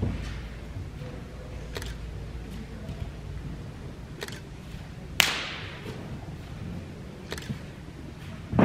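A karate practitioner's fast open-hand strikes during a form, giving a few soft sharp cracks and one loud crack about five seconds in, then a heavier thump with a crack near the end, echoing in a large hall.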